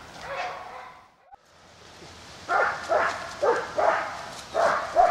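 German Shepherd barking about six times in quick succession at the food held in its handler's hand, after a short quiet gap.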